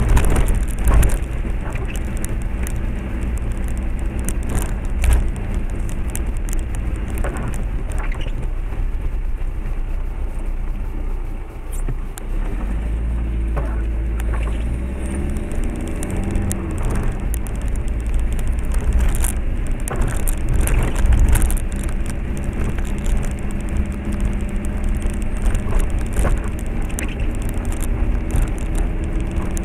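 Car engine running and tyres on a wet, rough road, heard from inside the car, with frequent knocks and rattles as it goes over bumps. A little past the middle the engine swells and rises in pitch.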